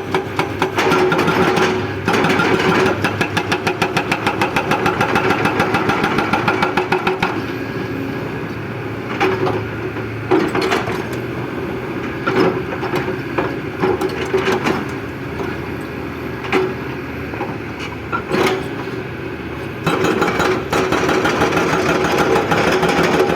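Kobelco excavator working: its diesel engine runs with a rapid, even pounding for the first several seconds and again near the end, and a steadier engine sound with occasional clanks in between.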